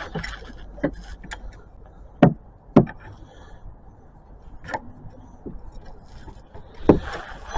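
Jack being handled and set under the car's frame: a handful of separate sharp knocks and clanks, two close together about two seconds in and another near the end.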